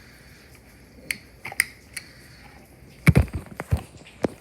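Handling noise: a few sharp clicks, then a louder cluster of knocks and thumps about three seconds in and one last click near the end.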